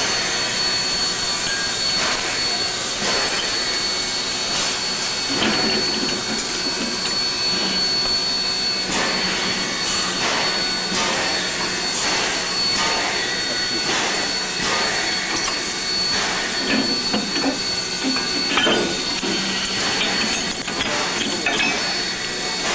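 Steam locomotive W 192, a New Zealand W class tank engine, hissing steam steadily, with scattered knocks and clinks through it.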